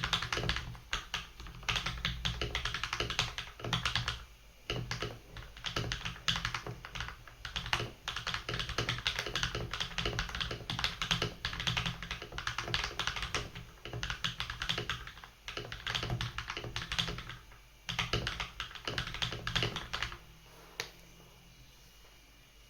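Fast, continuous typing on a HyperX Alloy mechanical keyboard with spray-lubed Kailh Silver Speed linear switches. The typing stops near the end, with one last keystroke shortly after.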